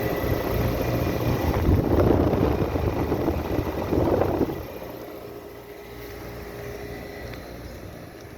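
Packaged air-conditioning units running: a condenser fan blowing air over a steady compressor hum. It is loud for about the first four and a half seconds, then drops to a quieter steady hum.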